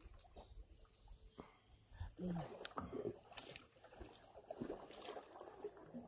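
Quiet rainforest ambience: a steady high-pitched insect drone, with a few faint knocks and a brief faint murmur of voices about two seconds in.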